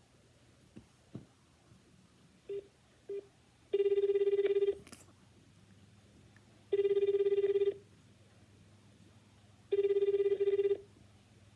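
Japanese telephone ringback tone on a call to a hotel: a warbling low tone about a second long, repeating every three seconds, three times, after two short beeps about half a second apart. The far end is ringing and nobody has answered yet.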